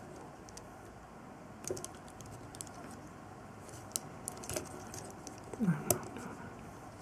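Faint scattered clicks and taps of the plastic parts and joints of a Real Grade Zeta Gundam model kit as it is handled and posed, with a louder cluster and a brief falling squeak near the end.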